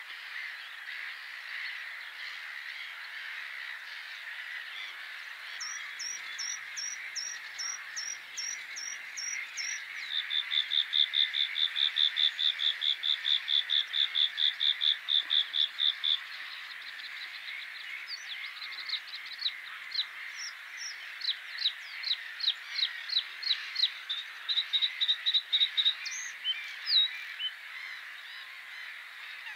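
Male bluethroat singing its territorial song: a few repeated high notes, then a long fast run of one note repeated for several seconds, then a varied string of quick notes and slurs, over steady background noise.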